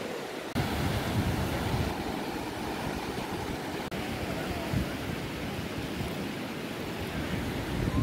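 Wind buffeting the microphone over the steady hiss of sea surf on a beach. The sound jumps abruptly louder about half a second in.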